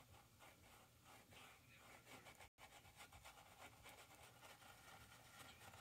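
Near silence with the faint scratch of a paintbrush dabbing and dragging paint on a canvas. The sound cuts out completely for an instant about halfway through.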